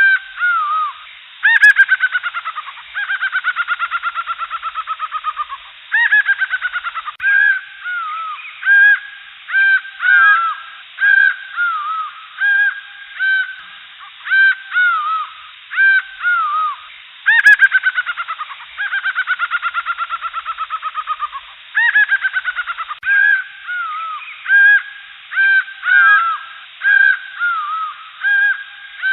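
Jungle birds calling: short arched call notes over and over, with a few long, fast chattering trills that slide down in pitch.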